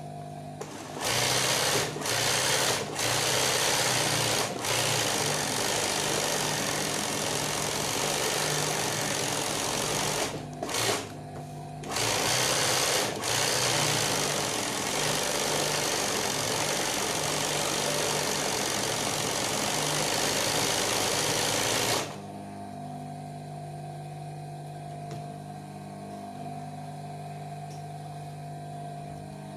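Industrial sewing machine running fast while stitching free-motion embroidery on fabric stretched in a hoop, in long spells with a few brief stops. It stops about 22 seconds in, leaving a steady low hum that is also there underneath the stitching.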